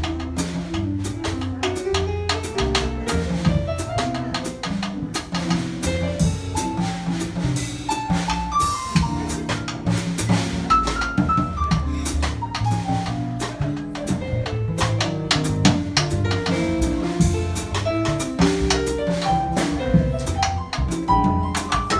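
Live jazz trio of piano, upright bass and drum kit playing together, the piano carrying a melodic line that climbs and falls over the bass and a steady run of drum and cymbal strokes.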